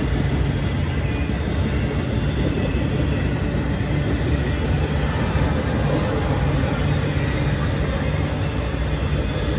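Loaded autorack freight cars rolling past on the rails, a steady low rumble of wheels on track.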